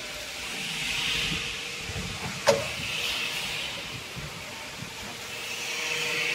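Steady factory hiss and a faint hum while stainless steel filling-machine parts are handled, with one sharp knock of metal parts about two and a half seconds in.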